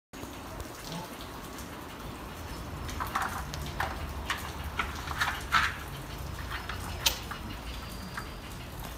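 Scattered light knocks and clicks from bears handling hanging food feeders, a ball feeder on a chain, over a steady low outdoor hum. The clicks bunch up in the middle, with one sharp click about seven seconds in.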